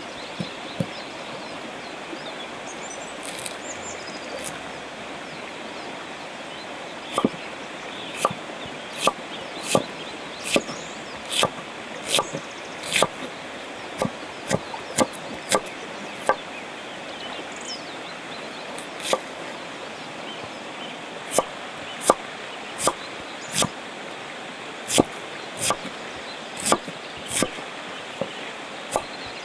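Kitchen knife slicing an onion on a wooden cutting board: sharp knocks of the blade meeting the board, roughly one a second, sparse for the first several seconds and pausing once in the middle. A steady rush of river water runs underneath.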